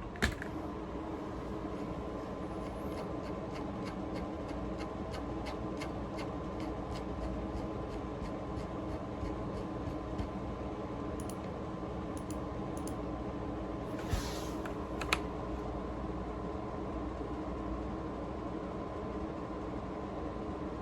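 Light, irregular clicking of typing on a computer keyboard for the first two-thirds or so, over a steady electrical hum, with a sharp knock just after the start and two louder clicks a little past the middle.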